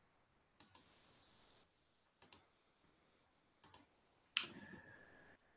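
Three faint double clicks of a computer mouse, about a second and a half apart, then a slightly louder knock about four seconds in with a faint held tone after it that dies away within a second.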